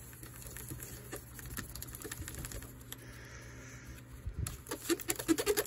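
Cotton and a fingertip rubbing polish into a styrene model-kit wing: faint scuffing at first, then from about five seconds in a quick run of short rubbing strokes, around nine a second.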